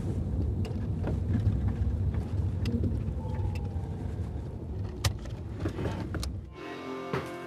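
A car's low, steady running rumble heard from inside the cabin as it drives slowly, with scattered light clicks and ticks. Near the end the car sound cuts off and music comes in.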